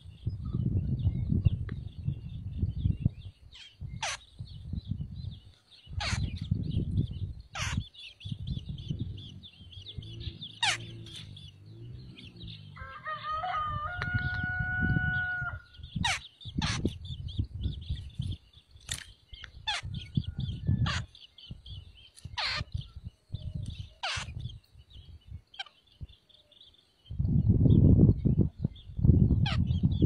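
Short, sharp high bird chirps again and again over a steady high hiss and irregular low wind buffets on the microphone, with a domestic rooster crowing once, about two and a half seconds long, starting about thirteen seconds in.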